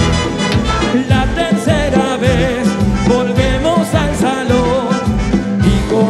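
A band and a symphonic wind band playing a song live: drums and bass keeping a steady beat under wind instruments, with a singing voice.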